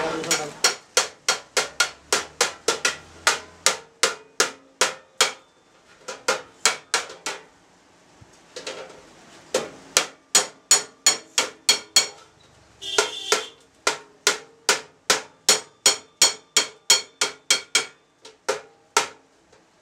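Hammer blows on sheet metal, about three to four a second, in runs broken by short pauses, each blow ringing briefly.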